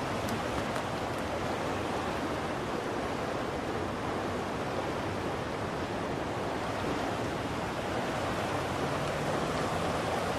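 Flooded creek, high with snowmelt and rain, rushing steadily and hitting against the bottom of a bridge.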